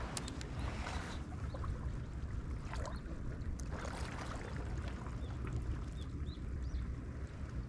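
Outdoor seaside ambience: a steady low rumble of wind and water, with a few small clicks and rustles.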